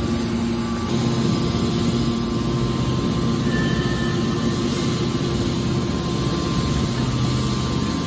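Hydraulic scrap car baler running: a steady low machine hum with no sharp impacts.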